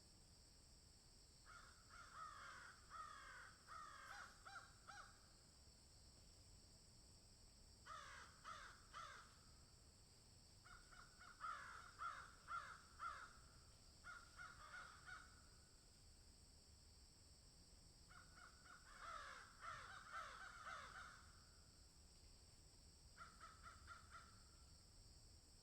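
Crows cawing in about six bouts of quick repeated caws, a few seconds apart, over a steady high hiss.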